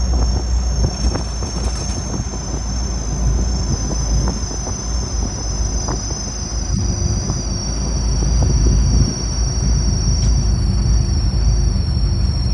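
Car running, with a steady low rumble and scattered small knocks. A thin, steady high-pitched whine over it drops slightly in pitch about two-thirds of the way through.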